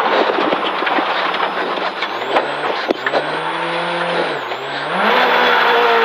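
Ford Fiesta rally car recovering from an overshoot at a gravel hairpin. Tyres scrabble and stones clatter as it slides and stops. About two seconds in the engine note rises, dips briefly, then revs up louder again near the end as the car pulls away.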